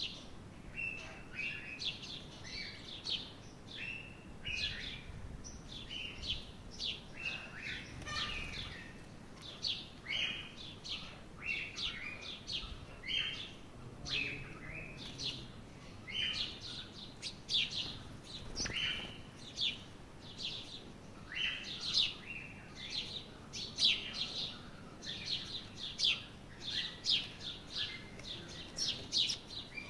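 Small birds chirping: many short, high calls, a few each second, overlapping throughout.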